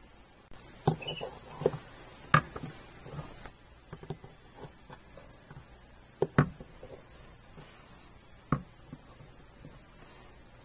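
Handling noise from plastic toy horse figures being moved about on a wooden floor: scattered light taps and clicks, with a few sharper knocks spread through.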